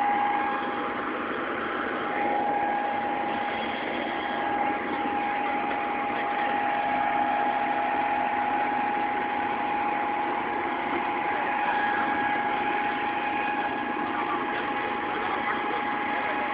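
An engine idling steadily, with a constant high whine held over it.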